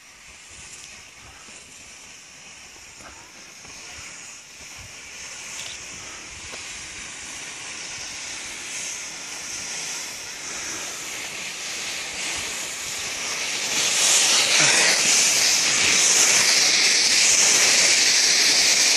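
Skis sliding and scraping on packed snow as a group of skiers comes down the slope, growing steadily louder as they approach and loudest over the last few seconds as they pass close by.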